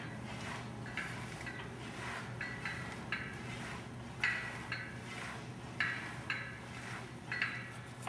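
Metal clinking from a cable-pulley gym machine as its cable is pulled in repeated twisting strokes: a dozen or so short, irregular clinks with a brief ring, over a steady low hum.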